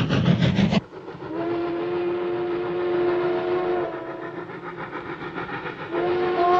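Steam locomotive chugging in a fast, even rhythm that stops about a second in. Then comes its steam whistle, a chord of several tones blown twice: one blast about two and a half seconds long, and a second starting near the end.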